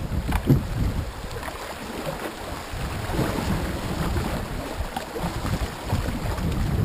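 Shallow river water rippling and splashing along a canoe's hull, with wind buffeting the microphone; a single knock about half a second in.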